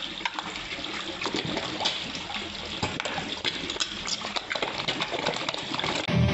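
Koi splashing and slurping at the water surface as they crowd a hand to take pellets, a steady wash of water with many irregular small splashes and sucking pops.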